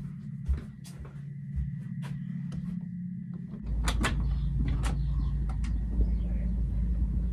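Small clicks and steps, then a front door being opened about three and a half seconds in, with sharp latch clicks and a steady low outdoor rumble coming in through the open door.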